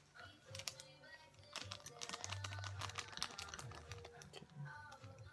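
Light, rapid clicking and crinkling as a ramen seasoning packet is torn and emptied and chopsticks work in bowls, with a pop song playing quietly in the background.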